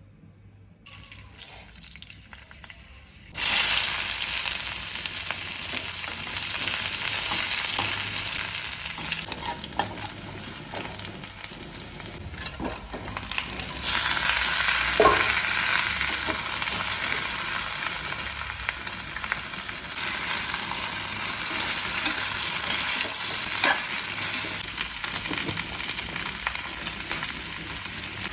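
Pork frying in a hot pan, sizzling. The sizzle starts suddenly about three seconds in and grows louder again about halfway through, with occasional clicks and scrapes as it is stirred.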